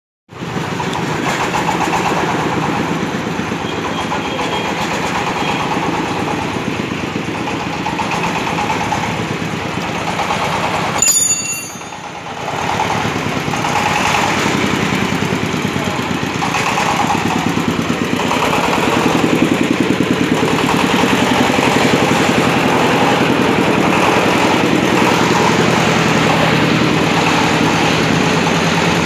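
Engine of a self-propelled well-drilling rig running steadily, with a short high squeak and a brief drop in level about eleven seconds in.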